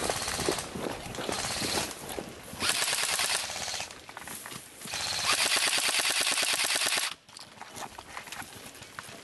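Airsoft rifles firing full-auto, a rapid rattle of shots in several bursts, the longest about two seconds and cutting off abruptly about seven seconds in.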